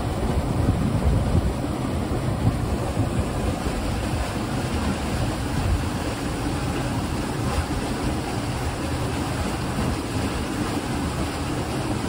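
Stream water rushing steadily over rock and pouring through a narrow man-made channel: a dense, even, industrial-sounding rush.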